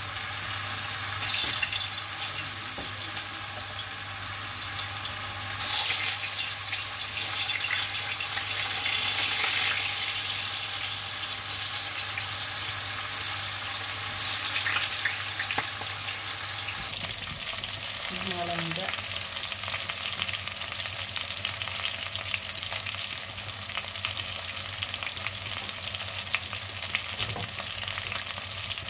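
Potatoes frying in hot oil, half-cooked for maqlooba: a steady sizzle that surges sharply about a second in, again around six seconds, and once more near fourteen seconds.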